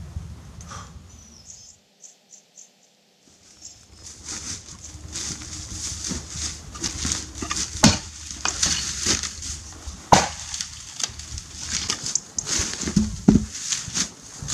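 Helko Werk Tasmanian axe limbing a felled tree: sharp strikes into wood a couple of seconds apart, amid crackling and rustling of dry branches and brush.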